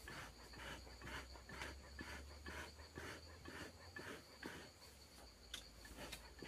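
Faint insects chirping: a steady high-pitched trill with a rhythmic pulsing call about twice a second.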